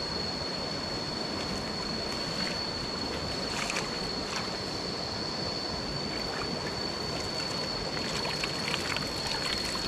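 Stream water rushing steadily, with a thin, steady high-pitched tone over it and a few faint clicks around the middle and near the end.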